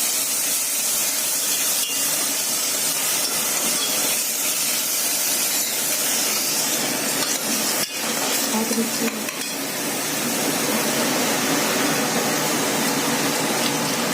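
Paste sizzling in hot oil in a pressure cooker as it is stirred with a spoon, with a steady frying hiss and a couple of knocks of the spoon against the pot.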